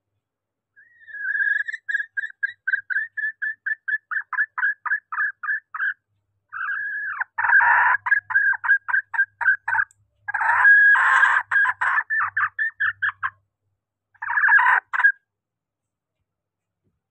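Female junglefowl calling, a call used to lure cock birds. It begins as a run of short clucks, several a second, then breaks into three louder, harsher bouts of rapid cackling before stopping near the end.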